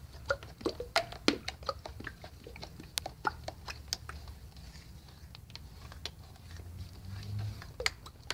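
Thick white latex paint being stirred in a bucket as violet and black tint is mixed in: irregular wet clicks and smacks from the stirrer moving through the paint.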